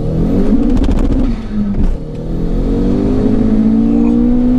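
Turbocharged 1.8T four-cylinder with a GT28 turbo in a Seat Arosa, heard from inside the cabin under hard acceleration. The engine revs climb, dip briefly at a gear change about a second and a half in, then climb again more slowly in the next gear.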